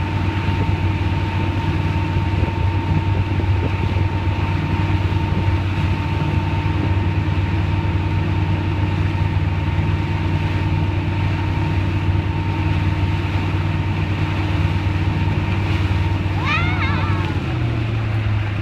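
Wake boat's engine running at a steady cruising pace under a rush of wind and water, with a faint steady whine above it. About a second and a half before the end a brief high call with quick rising and falling pitch sounds, and the engine note steps up slightly.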